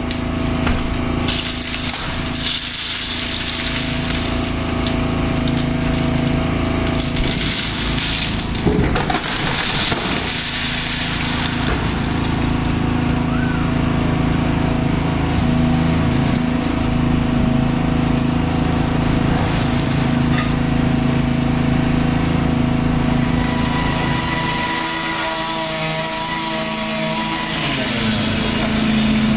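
Power tools and machinery running on a demolition job, a steady mechanical drone with sustained tones and a brief disturbance about nine seconds in.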